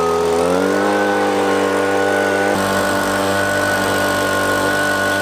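Handheld two-stroke petrol leaf blower running, revving up about half a second in and then held steady at high speed while blowing dust out of a shed.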